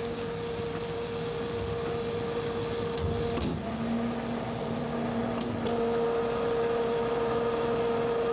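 Mailsafex mail-screening cabinet humming steadily as it runs, with a sharp knock about three and a half seconds in as its door or drawer is handled.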